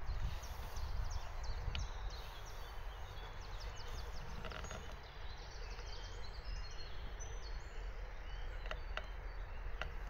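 Small birds chirping and singing in short, quick notes and falling whistles, over a steady low rumble of wind on the microphone.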